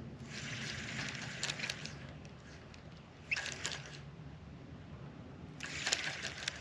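Spinning reel being cranked in three short bursts, each a whirring run of rapid fine ticks from the reel's gearing as line is retrieved.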